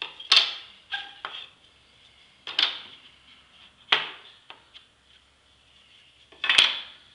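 Wooden crate slats being set down into a wooden assembly guide on a workbench, knocking against the guide boards: four sharp wooden clacks with several lighter knocks between them, the loudest one near the end.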